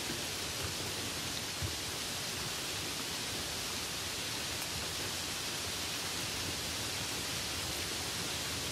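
Light rain sound effect: a steady, even hiss of falling rain, with one soft low knock about a second and a half in.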